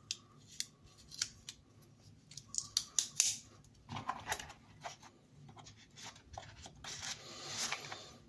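Folding multi-tool being handled: a string of sharp metallic clicks and clacks from its locks and folding tools, then a longer rubbing sound near the end.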